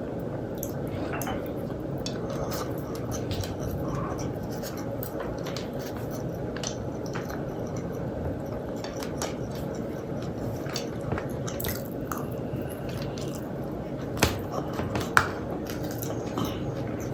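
Close-miked chewing with small wet mouth clicks, and a couple of sharper clicks near the end.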